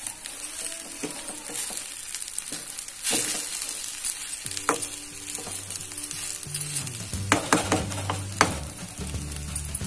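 Slotted steel spatula stirring and scraping thick rice rava upma in a metal pan, with a steady gritty scrape and sharp clicks of the spatula against the pan, several in quick succession near the end.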